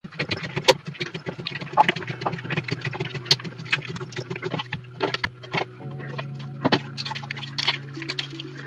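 Rapid, irregular crisp crackles and crunches of shaped sand being crushed, over low sustained background music that grows fuller about six seconds in.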